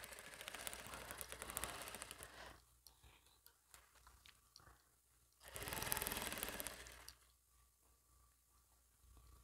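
Brother sewing machine stitching through fabric in two runs, each a fast, even clatter of needle strokes: the first about two and a half seconds long, then a pause, then a shorter run of about a second and a half.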